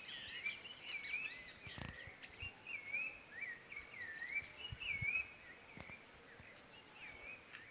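Rufous-bellied thrush (sabiá-laranjeira) singing: a run of short, curving whistled notes one after another. A steady high insect drone runs underneath.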